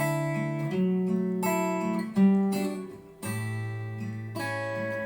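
Acoustic guitar intro of a recorded song: plucked chords ringing out, with a new chord about every second.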